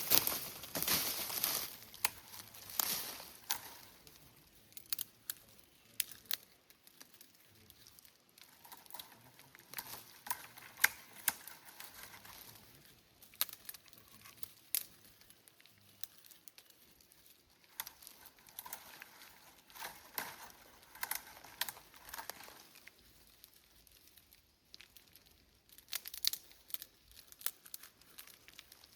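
Irregular rustling and crinkling, with scattered sharp snaps and clicks, in bursts with quieter gaps between them.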